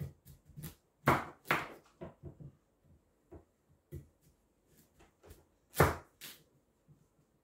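Kitchen knife cutting pumpkin on a wooden chopping board: irregular knocks as the blade goes through the pumpkin and strikes the board, the loudest about one second in and again near six seconds.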